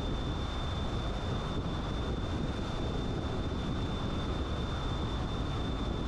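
Steady road noise of a car driving: a low rumble of tyres and wind, with a thin, steady high-pitched whine over it.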